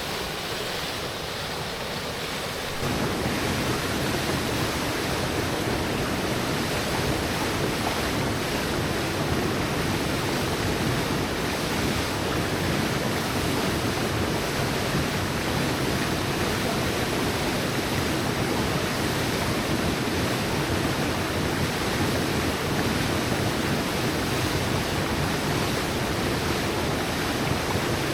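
River current rushing steadily, a continuous watery noise that gets louder about three seconds in.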